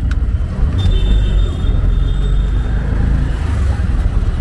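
Auto-rickshaw running along a city street, heard from inside the open cab as a steady low engine-and-road rumble. A thin high tone sounds briefly about a second in.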